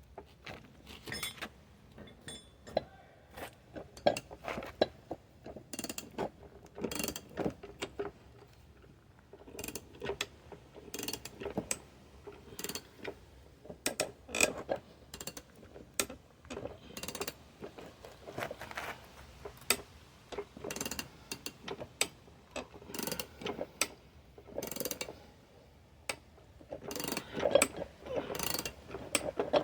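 Hand tools working metal on a seized garden-tractor axle hub: irregular runs of sharp metallic clicks and short scraping strokes, with a few brief pauses.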